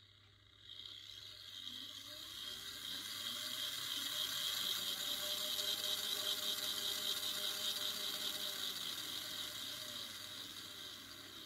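Model steam-outline locomotive chassis test-running with its wheels free: the electric motor and gear train whir as the wheels, coupling rods and valve gear turn. It starts about half a second in, speeds up with a rising whine to a peak mid-way, then slows with a falling whine near the end.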